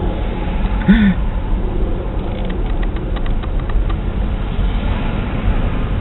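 Car driving slowly, heard from inside the cabin: a steady low rumble of engine and tyres on the road. A short pitched sound comes about a second in.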